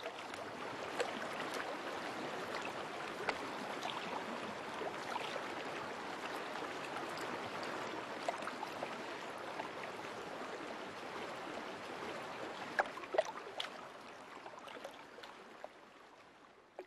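A stream flowing: a steady rush of water with scattered brief clicks, fading out over the last few seconds.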